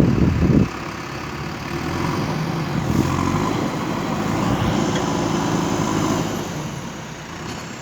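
JCB 3DX backhoe loader's diesel engine running, its revs rising about two seconds in and dropping back near the end. A loud low thump comes at the very start.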